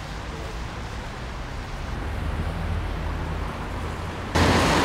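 Busy city-street background noise: a steady low traffic rumble with a light wash of noise above it, jumping abruptly to a much louder, brighter wash of noise about four seconds in.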